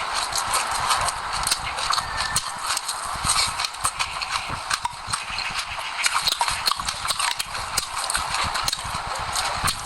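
Close-miked chewing of sesame seeds and passion fruit: a dense, steady run of sharp crunches and crackling clicks from the seeds breaking between the teeth, with soft low thuds of the jaw underneath.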